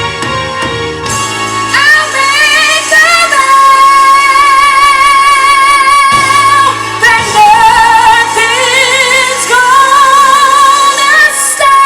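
A female singer belting long, held notes with a wide vibrato over instrumental accompaniment. The notes swell and sway, with a fresh phrase rising in about two seconds in and another about eight seconds in.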